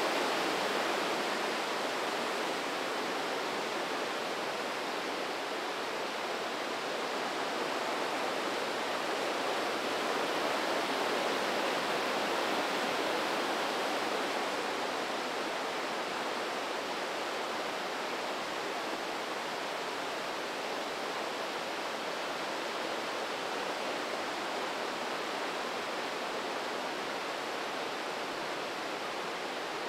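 The Breitach river rushing through a narrow rock gorge: a steady, even rush of white water.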